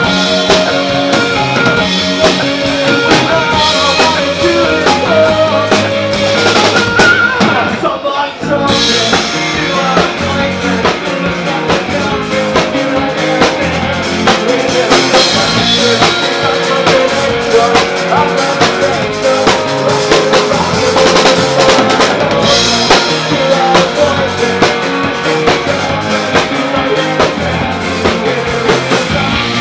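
Live rock band playing: electric guitars, bass guitar and drum kit with lead vocals, the band briefly dropping out about eight seconds in before coming back in full.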